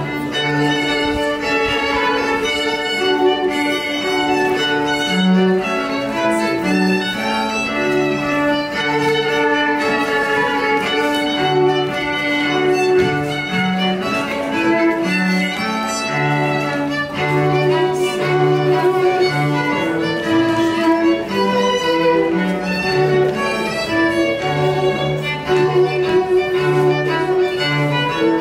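Instrumental music for a Regency country dance: a violin tune over cello and other bowed strings, moving from note to note in a steady dance rhythm.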